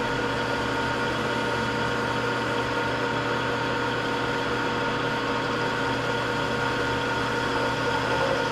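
Metal lathe running steadily, a machine hum with a few steady whining tones from the motor and gearing.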